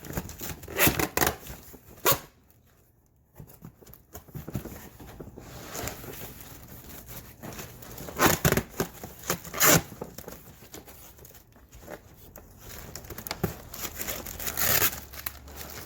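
Cardboard shipping box being opened and handled by hand: tearing, rustling and scraping in irregular bursts, with a brief quiet stretch about two seconds in.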